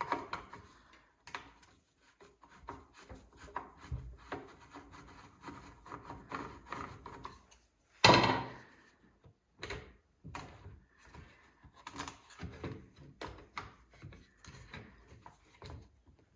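Hand-tool work on a power cutter: a screwdriver and hands working the plastic housing and intake boot, making scattered small clicks, scrapes and knocks, with one louder clunk about halfway through.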